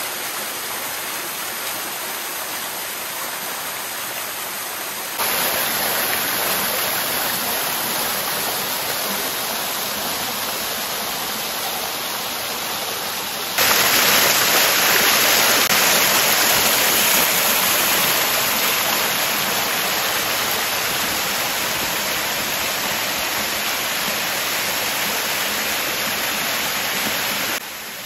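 Waterfall: a steady rush of falling water. It jumps suddenly louder about five seconds in and again about halfway through.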